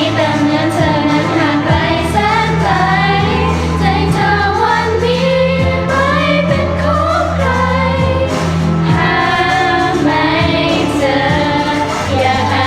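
Choir singing a Thai pop song over instrumental backing, with sustained low bass notes beneath the voices.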